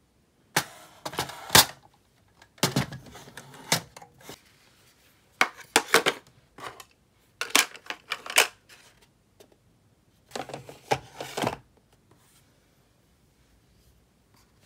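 Clicks, taps and knocks of small objects and a clear plastic drawer organiser being handled and set down on a desk, in five short bursts with quiet gaps between them.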